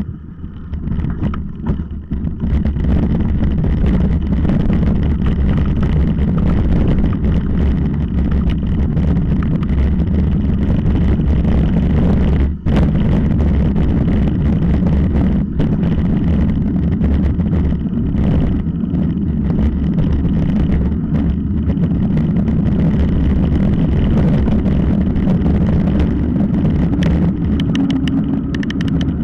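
Wind rumbling on an onboard camera's microphone during a fast mountain-bike descent, with the tyres crunching and rattling over loose rock and gravel. The loud rumble is steady, apart from a brief drop about twelve seconds in.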